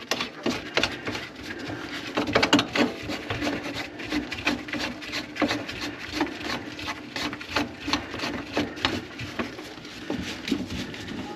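Irregular clicks and knocks of hands and tools working on a kitchen sink drain's P-trap, over a faint steady hum.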